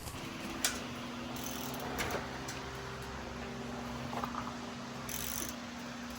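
A steady mechanical hum of one even pitch, with a few light clicks and taps of hand tools at an engine.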